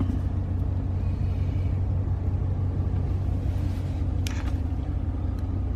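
The 2015 Dodge Ram 1500's 5.7-litre Hemi V8 idling, a steady low hum heard from inside the cab, with a faint brief rustle about four seconds in.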